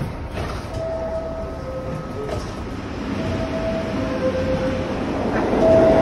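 Two-tone descending 'ding-dong' door chime of a New York City Subway car, the signal that the doors are closing. It sounds twice, and a third chime begins near the end, over the steady noise of the train.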